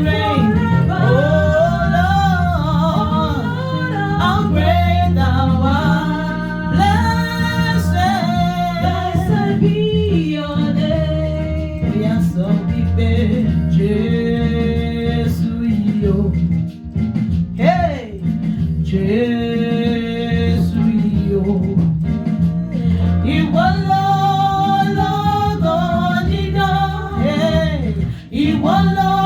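A worship song: a voice singing a melody over instrumental accompaniment with a steady low bass.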